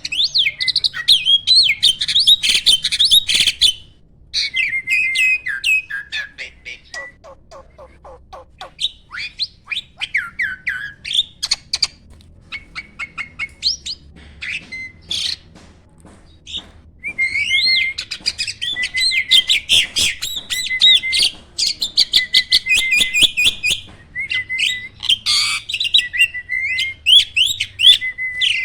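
Asian pied starling (jalak suren) singing: long runs of fast chattering whistles mixed with sharp clicks. A sparser, quieter stretch comes in the middle before the dense song picks up again.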